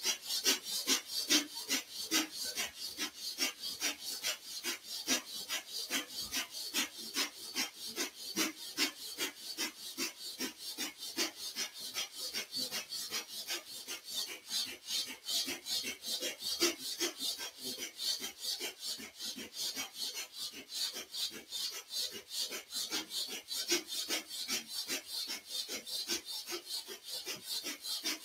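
Bhastrika pranayama: a person breathing forcefully and rapidly through the nose, each inhale and exhale a short hissing rasp of air in a quick, even rhythm.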